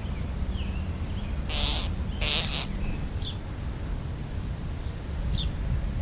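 Wild birds calling at a feeding spot: two short harsh calls about a second and a half and two seconds in, with a few brief high chirps before and after. A steady low rumble runs underneath.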